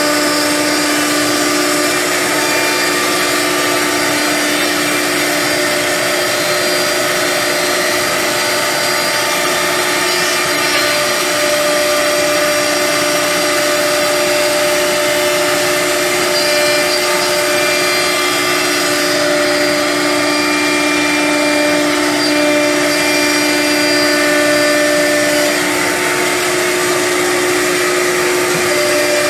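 Three-head CNC nesting router cutting grooves in a wood furniture panel: a steady, loud spindle whine over the rushing air of its dust extraction. One of the whining tones drops out about 25 seconds in.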